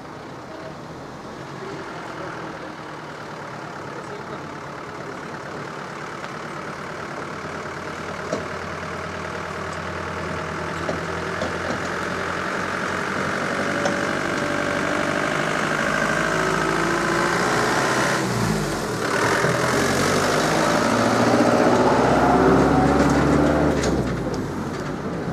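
Engine of a small tourist road train driving slowly toward and past, its engine note growing steadily louder as it comes close. It is loudest a few seconds before the end, then fades.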